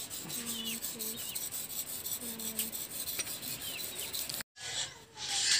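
Rapid, regular scraping strokes of a hand tool on wood, as the groove of a wooden bolo scabbard is carved out, with small birds chirping faintly. It cuts off suddenly about four and a half seconds in and gives way to a steady hiss.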